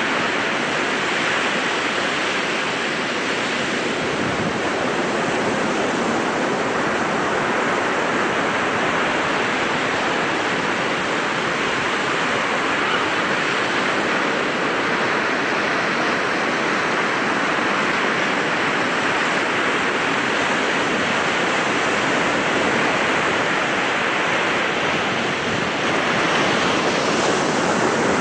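Baltic Sea surf breaking on a sandy shore: a steady rush of waves with wind, a little louder near the end.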